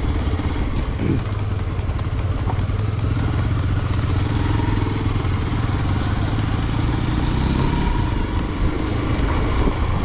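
Hero Xpulse 200 motorcycle's single-cylinder engine running steadily while riding on a dirt road, heard from the bike's own camera with road noise. A higher hiss rises for a few seconds mid-way, then fades.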